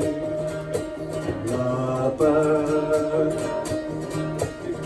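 Live folk music: a singing voice holding long, drawn-out notes over acoustic guitar accompaniment.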